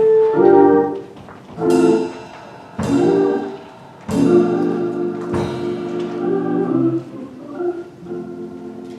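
Organ playing slow chords: a handful of separate sustained chords that each start sharply and fade, with short gaps between them.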